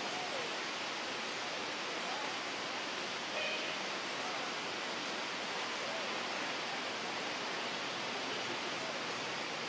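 Steady, even hiss of outdoor background noise, with a few faint short chirps, the clearest about three and a half seconds in.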